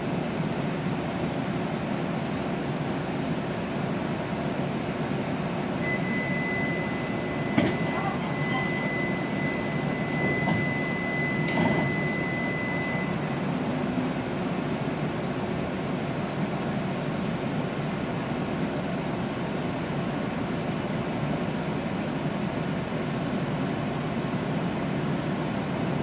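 Steady noise inside an E2 series Shinkansen car at the car-end deck. About six seconds in, a high electronic beep sounds on one steady pitch for about seven seconds. Two sharp clicks fall within it, the first the loudest.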